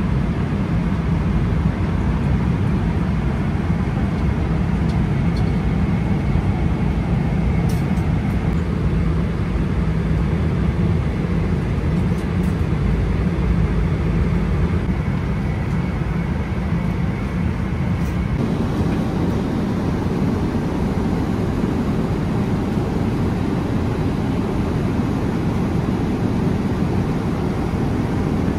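Steady noise inside the cabin of a Boeing 777-300ER airliner: engines and airflow. The balance of the noise shifts abruptly about two-thirds of the way through.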